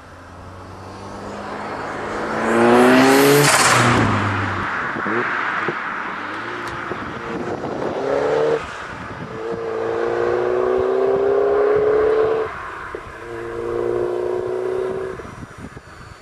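Peugeot 205 with a 2.0 8-valve turbo engine accelerating hard toward and past, its note rising to a peak and then dropping as it goes by about four seconds in. Later the engine pulls up through the revs in two long rising runs, broken by a sudden drop for a gear change.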